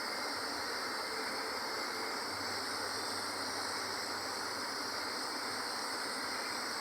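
A waterfall's steady roar of falling water, an even rushing noise that holds without change.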